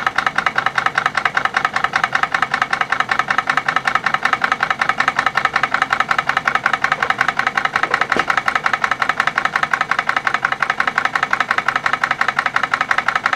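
PMR 1880's steam drilling engine, a 1-inch bore double-acting horizontal model steam engine, running with a rapid, even beat. It is picking up speed again as the cold water just added to the boiler turns to steam.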